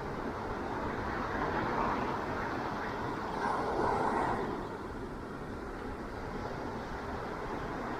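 Ocean waves washing onto a beach: a continuous rush of surf that swells twice, about two and four seconds in, then eases.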